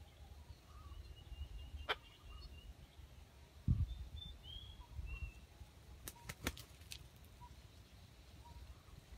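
Quiet outdoor ambience: faint, short bird chirps over a low rumble, with a dull thump about four seconds in and a few sharp clicks a couple of seconds later.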